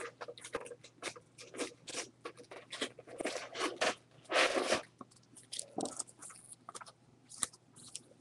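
Plastic-sleeved trading cards being dug out of a cardboard box by hand and handled as a stack, the sleeves rustling and scraping against each other in short, irregular bursts.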